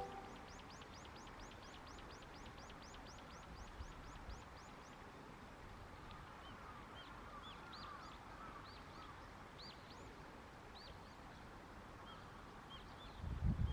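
Wild songbirds calling at dawn: a rapid run of high, down-curving chirps, about four a second, over the first few seconds, then scattered single chirps. A louder low burst comes right at the end.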